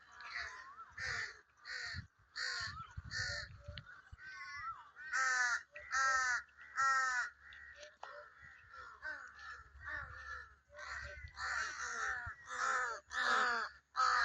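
Many crows cawing, one harsh call after another with calls overlapping, and three loud caws in a row about five to seven seconds in.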